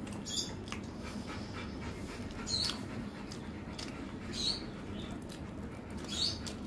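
Labrador retriever whining and panting softly: a few short, high whines about two seconds apart over quiet panting.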